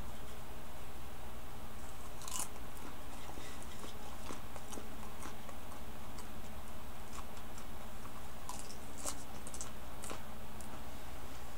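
Steady low electrical hum with scattered faint clicks and crackles.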